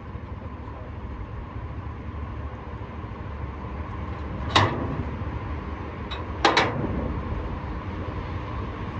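Steady low vehicle rumble, with a sharp knock about halfway through and two quick knocks a couple of seconds later, like a door or latch being shut.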